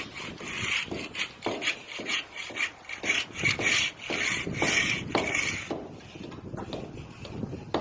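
A run of irregular rough scraping or rubbing strokes, several a second, that thins out near the end.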